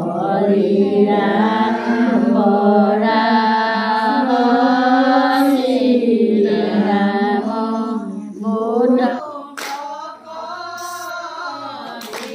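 A group of women singing a devotional prayer chant together in a Namghar, their voices loud and continuous, then dropping to a softer strain about nine seconds in.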